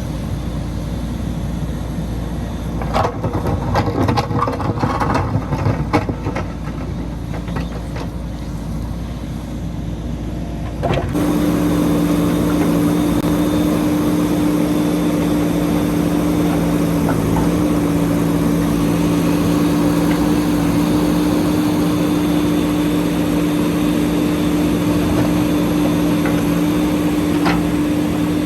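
JCB 3DX backhoe loader's diesel engine. It starts as a low rumble with a run of knocks and rattles a few seconds in. About eleven seconds in it changes abruptly to the engine running at a steady speed with an even hum.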